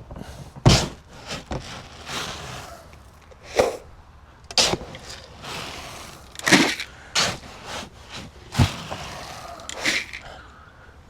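A string of sharp knocks and clatters with stretches of rustling between them: feed and its containers being handled as poultry feed is got out.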